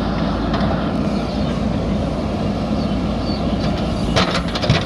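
Diesel engine of a JCB 3DX backhoe loader running steadily under work, with a few sharp metallic knocks near the end.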